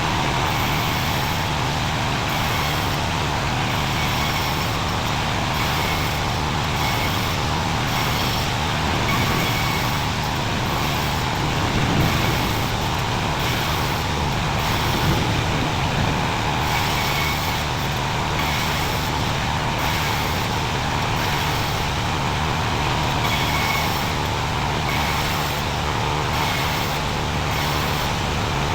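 Sawmill machinery running steadily, a constant low engine-like drone with a band of noise higher up, and slight swells in loudness twice near the middle.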